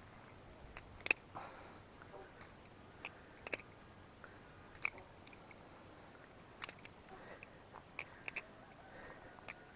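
BeFound butterfly knife with aluminium channel handles being flipped: irregular sharp clicks and clacks as the handles swing open and snap shut, some coming two in quick succession.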